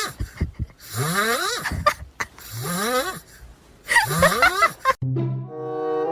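Loud snoring: four rasping breaths about a second and a half apart, each rising in pitch. About five seconds in they cut off and brass-and-timpani music begins.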